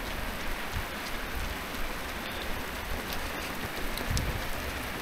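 Light rain falling, with scattered drops ticking close to the microphone.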